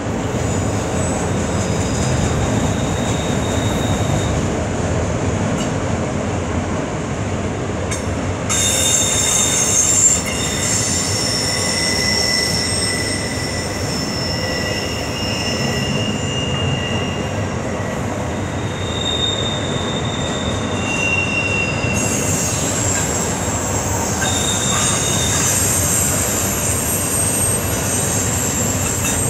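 Freight train of autorack cars rolling past on a curve: a steady rumble of steel wheels on rail. High-pitched wheel squeal, several tones at once, sets in about a third of the way through and again about three quarters of the way through, as the wheel flanges grind against the rail in the curve.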